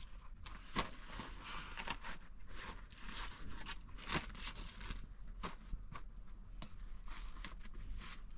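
Dry, thin lavash flatbread crackling and rustling as the sheets are handled and laid down on a cloth, with scattered sharp clicks; busiest in the first half, lighter after about five seconds.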